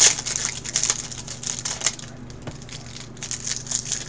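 Crinkling and crackling of a foil trading-card pack wrapper as hands tear it open and handle it, loudest at the start and again about two seconds in.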